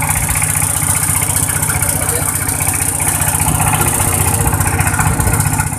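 A motor vehicle engine running steadily on the road, with a rapid low putter under a loud hiss.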